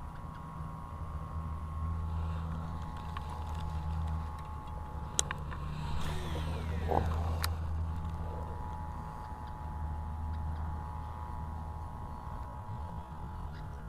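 A steady low engine hum runs throughout, with two sharp clicks around the middle.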